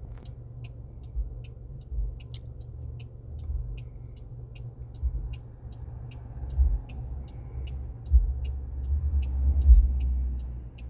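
The 2008 Pontiac G6's hazard-light flasher ticks steadily, about two and a half ticks a second, over a low hum. Dull low thumps come in now and then and are loudest near the end.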